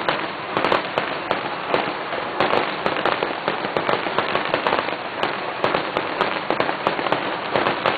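Fireworks grand finale: a rapid, unbroken barrage of overlapping bangs and crackles, several a second.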